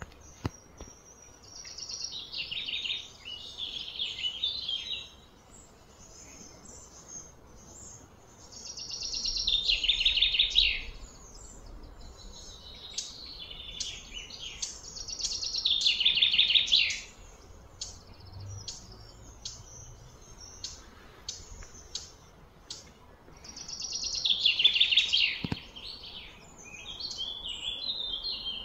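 Loud, high-pitched calls from outdoor wildlife repeat four times. Each swells over a couple of seconds and then cuts off, with scattered short chirps in between.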